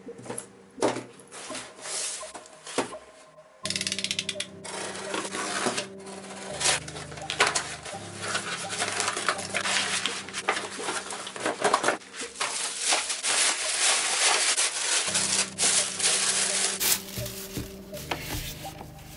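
Resin-cased watches being handled on a table by gloved hands: a run of small plastic clicks, knocks and rubbing. The background noise jumps up about four seconds in.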